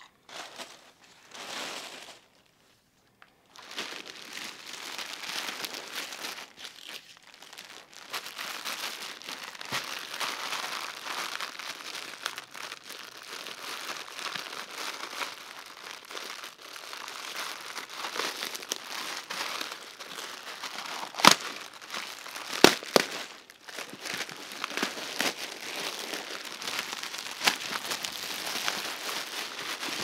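Clear plastic bag crinkling and rustling as hands unwrap a leather briefcase from it, starting after a short silence near the beginning. Two sharp snaps a little over a second apart, about two-thirds of the way through, are the loudest sounds.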